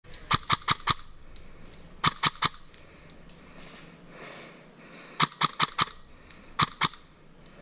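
Airsoft gun firing in four short strings of rapid shots (four, three, four, then two), about five shots a second, each a sharp crack.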